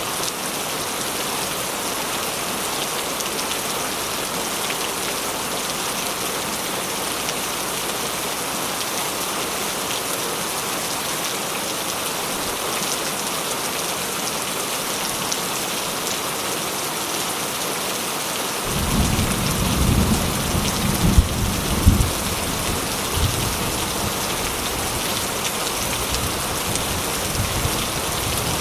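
Steady rain falling as a dense, even hiss. About two-thirds of the way in, a low roll of thunder rumbles in, peaking a couple of times and then easing back under the rain.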